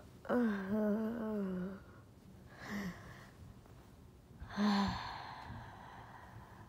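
A person's voice making wordless sounds: a wavering hum for about a second and a half, a short grunt, then a long breathy sigh that fades out.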